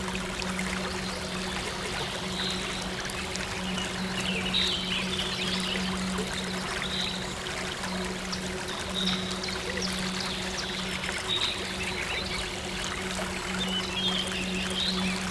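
Water flowing and trickling steadily, like a small stream, over a steady low synth drone, with short high chirps every couple of seconds.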